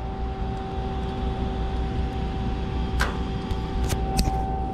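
Steady machine-shop hum, a constant tone over a low rumble. A few sharp clicks and knocks come about three seconds in and twice near the end.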